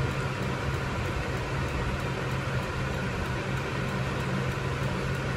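Steady low hum under an even hiss, unchanging throughout: the background noise of a running machine.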